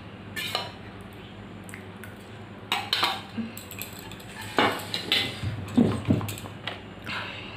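Cutlery clinking and scraping against a dish while eating, in scattered short clatters that come thickest past the middle.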